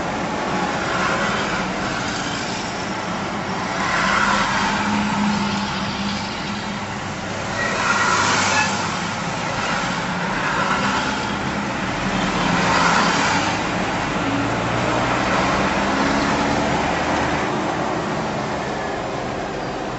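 Engine and road noise of a vehicle driving in traffic, heard from inside the cab: a steady hum and rumble that swells louder several times, about 4, 8 and 13 seconds in.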